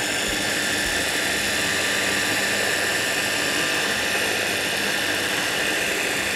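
Electric hand blender fitted with its chopper bowl, running as a steady whine while it emulsifies oil into a salad dressing.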